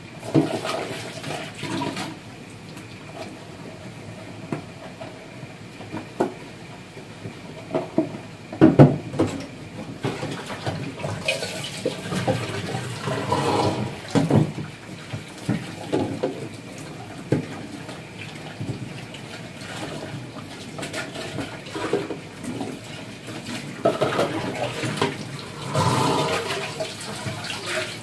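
Kitchen tap running into a stainless-steel sink during washing-up: water splashing into a metal pot and over pans, with scattered knocks and clatters of cookware against the sink.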